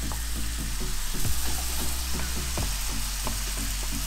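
Diced fresh tomatoes, onions and peppers sizzling steadily in a hot oiled frying pan while being stirred with a wooden spoon, with a few sharp knocks along the way.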